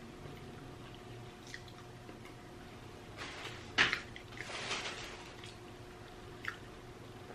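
Wet mouth sounds of eating: a sharp smack a little under four seconds in, then about a second of squishy chewing, and a faint click near the end.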